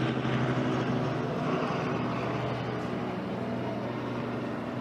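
A steady, low engine-like drone with a constant pitch, slowly fading.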